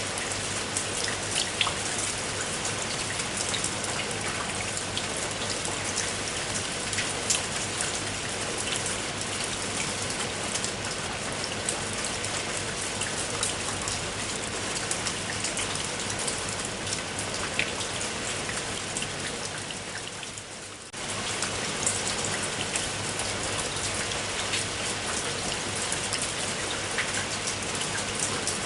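Steady rain falling, with many separate drops ticking out of the constant hiss. About three quarters of the way through it fades a little and then comes back suddenly at full level.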